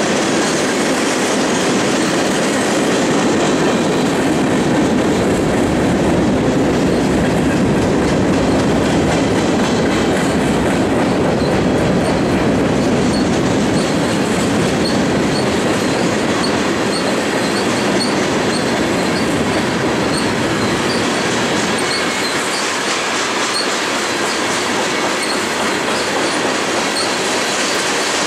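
Freight train cars rolling past: steady loud rolling noise of steel wheels on rail, with faint high squeaks recurring every second or so.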